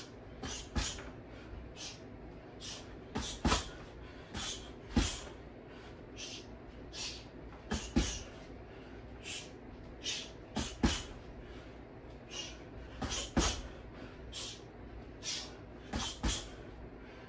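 Boxing gloves hitting a freestanding punching dummy with hooks and uppercuts, each hard punch a sudden thud every two or three seconds, between short hissed exhales from the boxer, about one or two a second.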